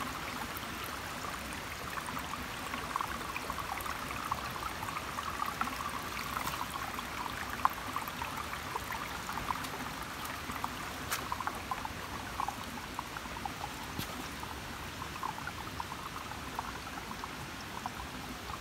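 Shallow stream water trickling over flat rock slabs, a steady babble with a few small ticks.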